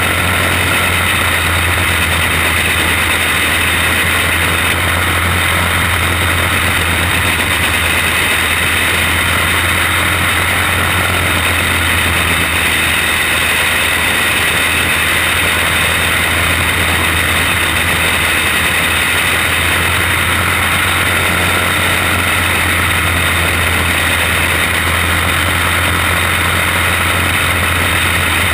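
Racing kart's single-cylinder engine running at speed, heard from a camera mounted on the kart itself, mixed with wind rushing over the microphone. The sound is a loud, steady drone with no clear rises or falls.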